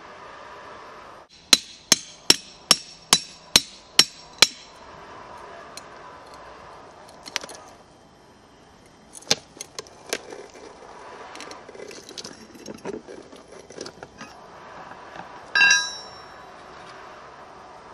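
A hammer striking steel plugs and feathers (splitting wedges) set in drill holes in stone: eight quick ringing strikes, about three a second, driving the wedges to split the rock. Scattered clicks and scrapes of handling follow, and near the end a single ringing metal knock as a tool is laid down on the stone.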